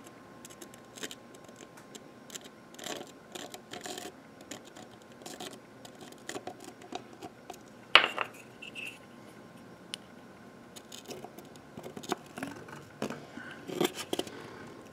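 Handling sounds of a cracked plastic equipment case being glued with super glue and pressed together: scattered light clicks, scratches and rubs, with one sharp click about eight seconds in.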